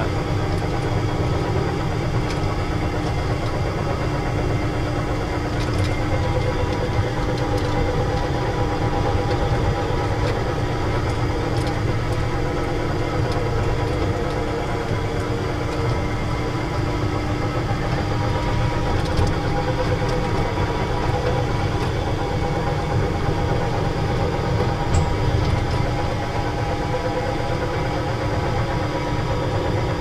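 The motor of a small amusement-ride tractor running steadily as it travels along its guide track.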